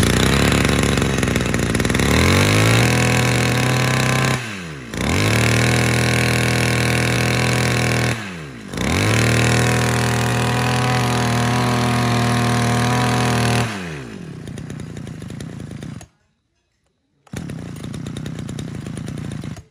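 Maruyama MBS320 32cc two-stroke brush cutter engine started and run. It is revved up three times, the pitch climbing and then falling back as the throttle is let off, before settling to a quieter idle near the end.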